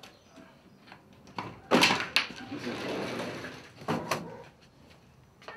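A wooden door being unlocked and opened: a loud clatter with a sharp click about two seconds in, a scraping rustle, then two more knocks near four seconds.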